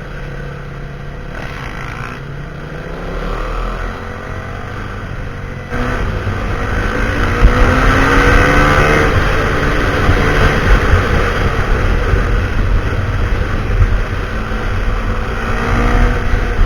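Husqvarna SMR 511 single-cylinder engine with a full Akrapovic exhaust, running steadily at first, then suddenly louder about six seconds in, its pitch rising and falling as it is revved.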